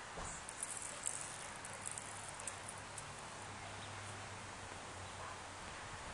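Faint outdoor background: a steady hiss with a faint low hum, and scattered small clicks in the first three seconds.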